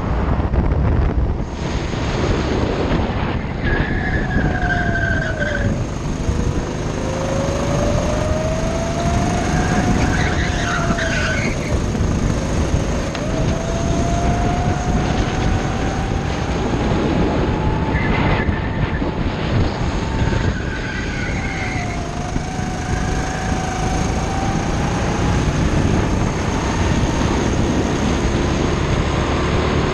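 Go-kart engine heard from onboard while racing, its pitch climbing slowly on the straights and dropping as the kart slows for corners, several times over, over a constant rush of road and wind noise.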